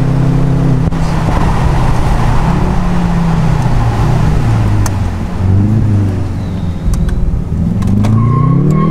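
Jaguar F-Type's engine pulling the car along a winding road with the roof down, with wind noise. The engine note rises and falls with the throttle and climbs near the end.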